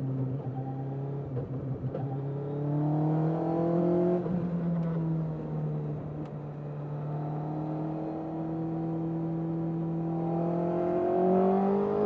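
Suzuki Hayabusa inline-four motorcycle engine in an MK Indy kit car, heard onboard, climbing slowly in revs under acceleration. The pitch drops sharply about four seconds in, then climbs steadily again through the rest.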